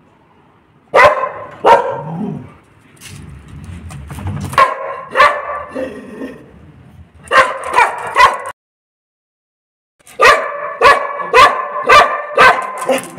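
Large long-haired black-and-tan dog barking loudly and repeatedly, in three runs of quick barks with a short break between the last two.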